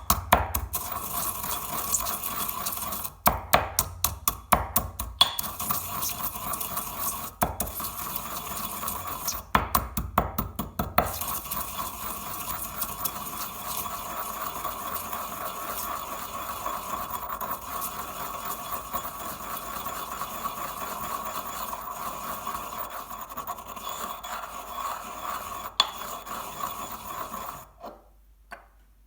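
Chocolate balls being crushed: several bursts of rapid, sharp crunching clicks, then a long stretch of continuous scraping and grinding that cuts off suddenly near the end.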